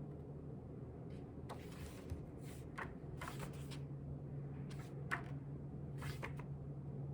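Paper rustling in several short bursts as book pages are turned and handled, over a steady low electrical hum.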